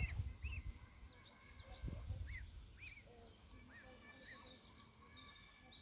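Greylag goose goslings peeping: many short, high, arched chirps repeated in quick succession, faint, with a few longer held peeps later on. Low rumbles near the start and about two seconds in.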